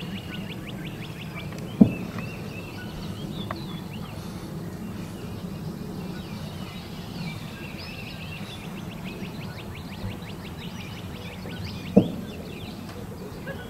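Open-air ambience with a steady low rumble and a small bird singing fast repeated trills, broken by two sharp bangs about ten seconds apart.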